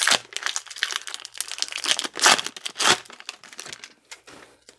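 Wrapper of a 2019 Topps Series 2 baseball card pack crinkling and tearing as it is ripped open by hand, a run of sharp rustles that thins out near the end.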